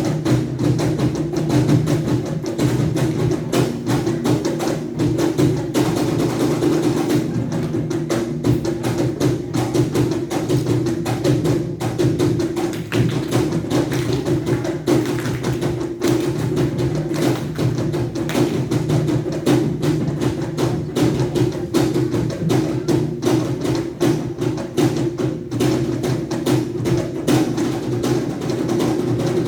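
Music with rapid, steady percussive tapping over a sustained low tone.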